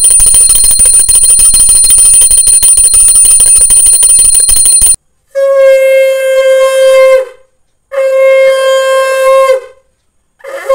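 Conch shell (shankha) blown three times for the evening sandhya puja: each blast a long steady note that dips in pitch as it ends, the third running on past the end. Before the blasts, about five seconds of loud, rapid ringing from a brass puja hand bell with a steady high tone.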